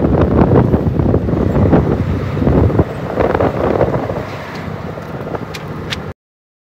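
Wind buffeting the phone's microphone over the running of a moving bus, with scattered rattles and knocks. It eases somewhat about three seconds in and cuts off suddenly about six seconds in.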